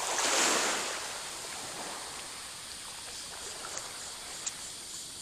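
An ultralight fishing rod being cast: a brief rushing swish of rod and line running off the reel, about a second long, then a steady background hiss.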